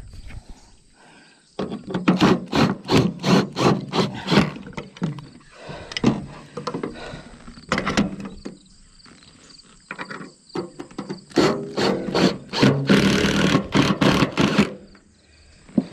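Makita cordless impact driver running bolts down through a steel weathervane mounting bracket into a metal roof ridge, in two long runs of rapid hammering over the motor's whine, about a second and a half in and again from about eleven seconds, the second run ending loudest.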